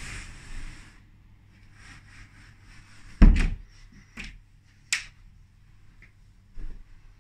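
A loud low thump about three seconds in, then a few sharper clicks and knocks, with faint rustling between. These are footsteps and handling noise from a phone carried through a carpeted room.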